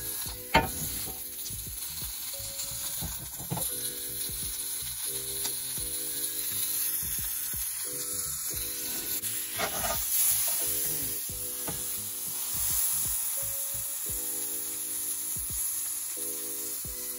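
Cuban sandwich sizzling on a hot cast-iron grill pan, a steady frying hiss, with a sharp knock about half a second in and a couple of lighter knocks later.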